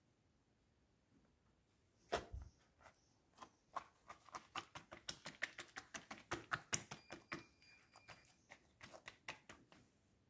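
A thump about two seconds in, then a rapid run of soft taps, about five a second, as a hand pats a flatbread down in the pan.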